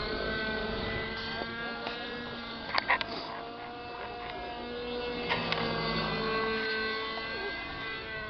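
Radio-controlled model helicopter flying overhead: a steady buzzing whine from its motor and rotor, its pitch wavering slightly as it manoeuvres. A few sharp clicks come about three seconds in and again about five and a half seconds in.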